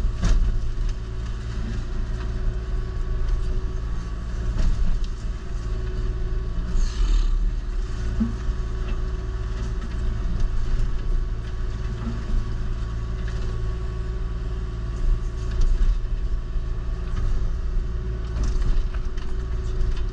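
Kubota KX040-4 mini excavator's diesel engine running under load with its Indeco hydraulic forestry mulcher head spinning: a steady, loud drone and hum, with scattered cracks and swells as brush is chewed up.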